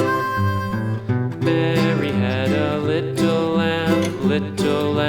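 Country-style music with acoustic guitar strumming.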